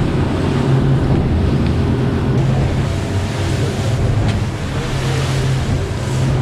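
Twin outboard motors running steadily at full speed as the boat skims over the sea, with water rushing along the hull and wind buffeting the microphone.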